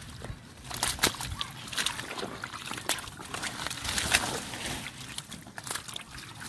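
Shallow water sloshing and splashing in irregular bursts with sharp clicks, from hands working through the water while fishing by hand.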